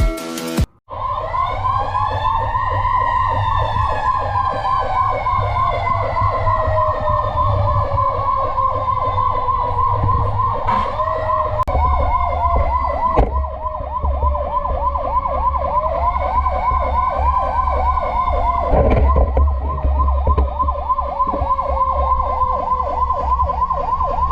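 Fire truck sirens sounding together. One gives a rapid, fast-repeating yelp. The other gives a slow wail that rises at the start and then sinks gradually in pitch, over the low rumble of the trucks' engines.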